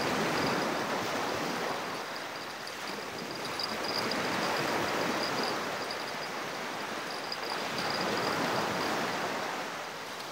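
Small waves washing onto a sandy beach, the surf noise swelling and easing every few seconds. A faint, thin high whine runs underneath.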